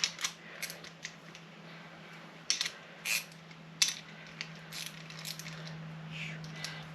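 Half-inch wrench clinking on a bolt as it is tightened down: several scattered sharp metallic clicks and taps over a steady low hum.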